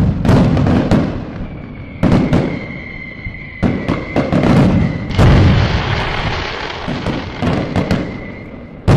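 Fireworks display: a string of sharp bangs from bursting shells, about a dozen over nine seconds with crackle between them. A thin steady whistle runs through most of it.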